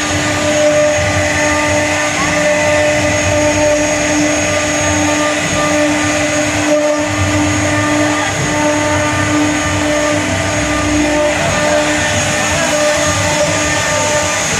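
A CNC wood-carving router running, a steady machine hum with a constant whine on top.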